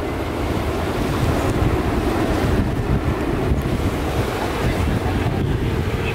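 Airbus A350-1000's twin Rolls-Royce Trent XWB-97 turbofans as the airliner passes low overhead, a steady jet rumble mixed with wind buffeting the microphone.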